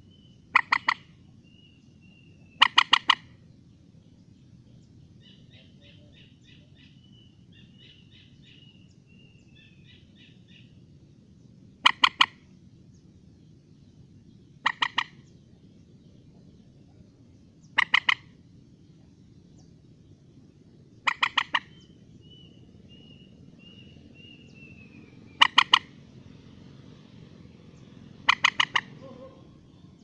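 Common moorhen calling: loud, sharp calls in quick groups of three or four, eight groups a few seconds apart. Thinner, higher calls of other birds come between them, over a steady low background hiss.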